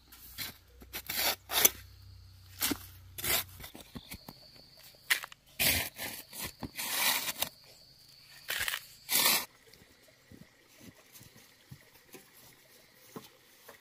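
Steel spade scraping into loose dry soil and tipping it into a plastic bucket: a run of short scrapes and pours, the longest and loudest in the middle, stopping about nine and a half seconds in, after which only faint rustling remains.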